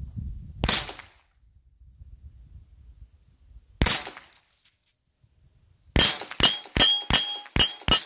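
.22 rifle shots: one crack just under a second in, then another about three seconds later that hits a mini pop can. Near the end comes a quick run of about nine sharp cracks with a metallic ringing over them.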